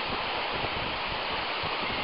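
Waterfall pouring down a mossy rock face, a steady noise of falling water.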